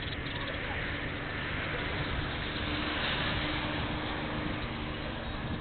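A car passing by, its engine and tyre noise swelling to a peak about three seconds in and then fading, over a steady low hum.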